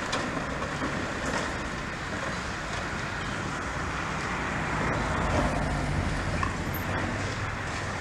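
Steady low rumble of heavy engines under a constant noisy hiss.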